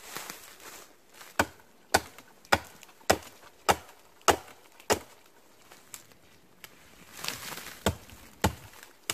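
Hatchet chopping into a knot on a pine trunk: a run of seven sharp strikes about every half second starting just over a second in, then after a short pause two more.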